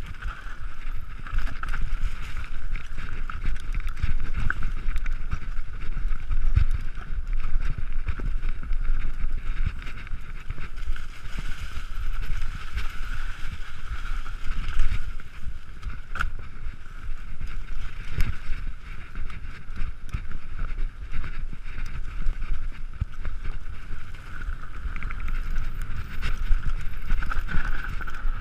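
Mountain bike riding fast down a rough dirt trail, heard through the rider's action-camera microphone: a steady wind rumble on the microphone with frequent clattering knocks and rattles from the bike over the uneven ground.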